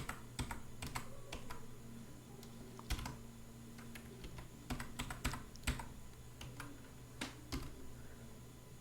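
Computer keyboard being typed on: quiet, irregular keystrokes in short runs with small pauses between them, as an SQL statement is entered.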